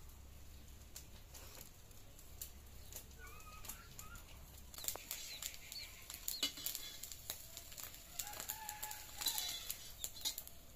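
Chickens clucking a few times, with sharp clicks and scrapes of a metal spatula against an iron kadai that come more often in the second half.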